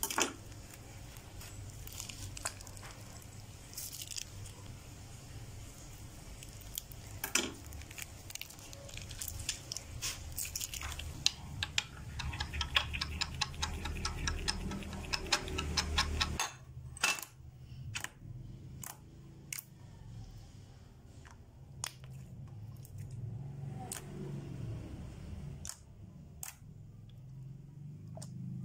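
Slime mixture being stirred with a spatula in a glass bowl: rapid ticks and scrapes of the spatula against the glass, which stop suddenly a little past the middle. Before and after, only scattered soft clicks and handling noises.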